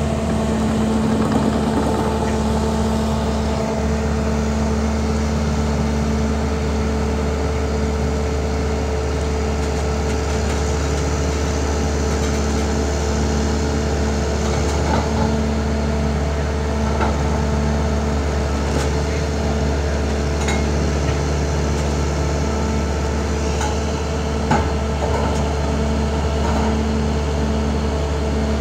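Diesel engines of heavy loaders running steadily with a constant low hum, broken by a few sharp metallic clinks.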